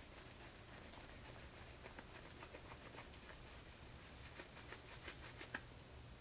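Faint, scattered light clicks and taps of small parts and tools being handled during a phone screen repair, a few a second, slightly busier near the end.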